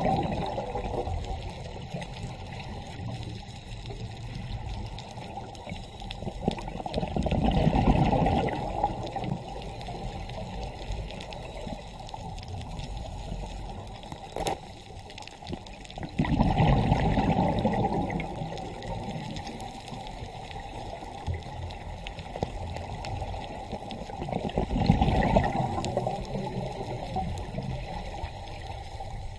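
Muffled underwater water noise, as picked up by a camera in its housing, swelling three times about every eight or nine seconds with the bubbling rush of a scuba diver's exhaled breath from the regulator.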